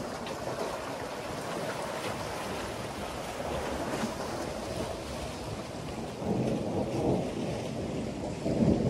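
Wind buffeting the microphone in a steady rush that turns gustier about six seconds in, with small lake waves washing against the breakwater's boulders.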